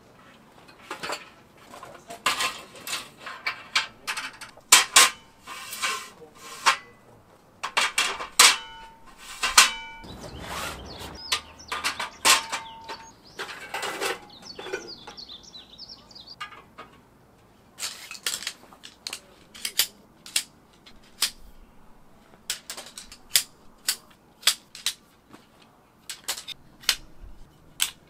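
Camping gear and dishes being handled and set down: a long irregular run of sharp clinks and knocks, some leaving a short ringing tone.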